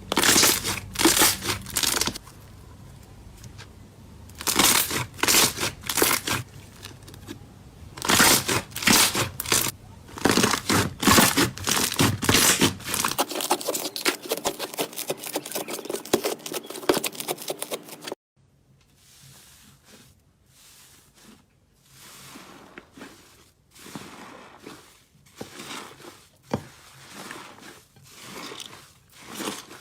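Slime being squeezed, stretched and pulled apart, making loud bursts of crackling, crinkling pops. About two-thirds through it cuts to quieter, evenly spaced soft squishes.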